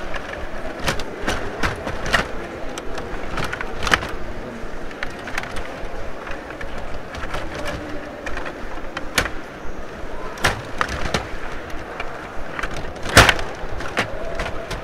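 Rod hockey game in play: irregular clacking and knocking of the plastic puck against the plastic players and boards as the rods are pushed and spun, with one loud sharp crack near the end, over a steady background din.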